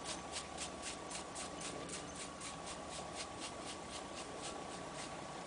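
Rapid, even mechanical ticking, about five ticks a second, that stops near the end, over a faint steady hum.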